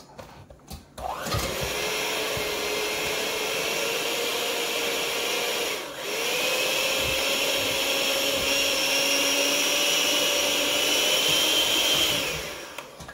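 Small electric kitchen mixer motor running steadily. It spins up about a second in, cuts out briefly midway, starts again and winds down near the end.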